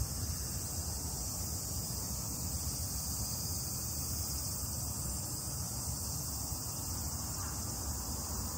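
Steady, high-pitched chorus of summer insects, with a low rumble of wind on the microphone underneath.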